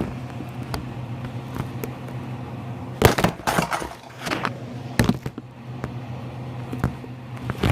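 Kitchenware clattering: a quick cluster of sharp knocks about three seconds in, then single knocks around five seconds and near the end, over a steady low hum.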